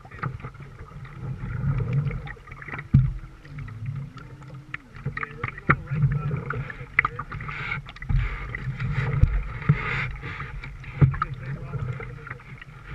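Canoe being paddled on a river: water swishing and gurgling around the paddle and hull in uneven pulses with each stroke, with several sharp knocks scattered through.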